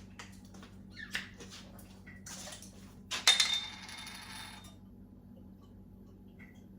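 Kitchen handling sounds: light clicks and knocks of containers and utensils, with a louder clatter about three seconds in that rings briefly.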